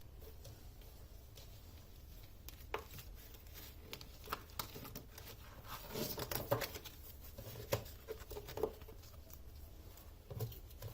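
Tarot cards being handled and set down on a table: faint, scattered soft taps and rustles, busiest around the middle.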